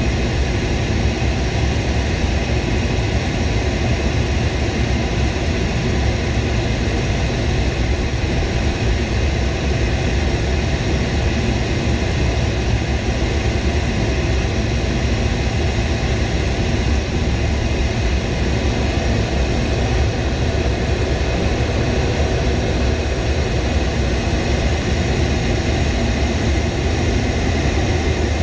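Steady drone of jet aircraft engines in flight: a constant low rumble with an even hiss above it, unchanging throughout.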